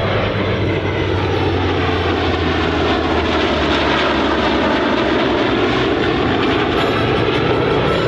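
Navy Legacy Flight formation with an EA-18G Growler flying past: a steady, loud jet roar whose tone sweeps down and back up about midway as the aircraft go by.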